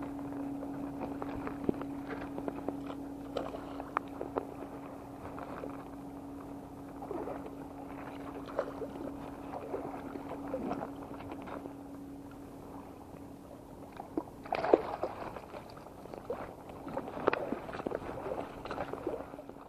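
A small hooked fish splashing and thrashing at the surface in shallow water as it is reeled in and netted, with short sharp ticks and splashes. The loudest splashes come near the end. A steady low hum runs underneath and fades out about two-thirds of the way through.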